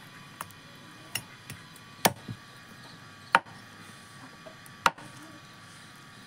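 Knife chopping raw chicken on a round wooden log-slice chopping block: about six sharp, separate chops at uneven intervals, three of them much louder than the rest, then the chopping stops.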